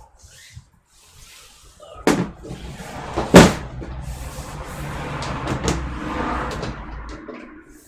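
Handling noises: two sharp knocks about two and three and a half seconds in, the second the loudest, then a few seconds of rustling with small clicks that fade near the end.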